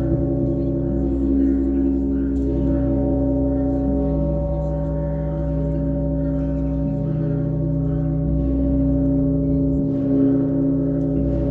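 Russian Orthodox church bells ringing: the big bells hum on in long, steady overlapping tones while smaller bells are struck over them about twice a second.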